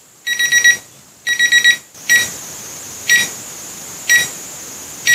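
Digital alarm clock beeping: two quick runs of rapid beeps, then single beeps about once a second.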